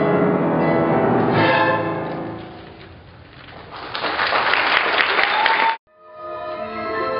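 A string ensemble's final chord fades out, then audience applause builds and is cut off abruptly; after a brief gap the strings start playing again.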